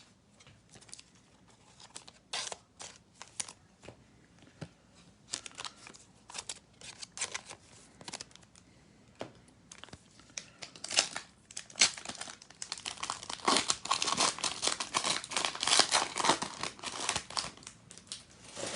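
Foil trading-card pack wrapper being crinkled and torn open, with scattered rustles and clicks of handling at first and a dense stretch of crinkling in the second half.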